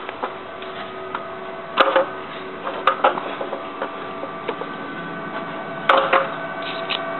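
A steady mechanical hum with several whining tones, broken by three sharp knocks, the loudest near two and six seconds in.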